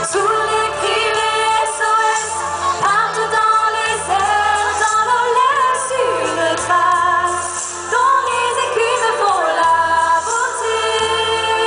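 Two women singing into microphones over amplified music, their voices holding notes and gliding up and down over a low accompaniment of sustained notes that change every couple of seconds.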